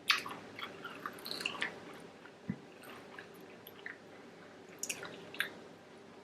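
A person chewing fried snack food, with scattered wet mouth clicks and squishy bites: a sharp click at the start, a cluster of them about a second in, and a few more near the end.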